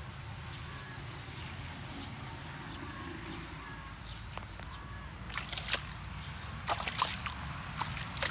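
Water splashing and dripping in short, irregular bursts starting about five seconds in, over a steady low hum.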